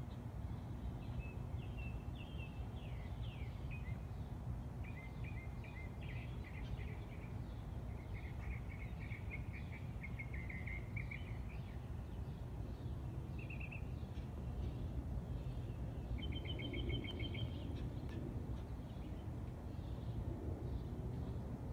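Small songbirds chirping and trilling in a series of short phrases, one a rapid run of repeated notes, over a steady low outdoor rumble.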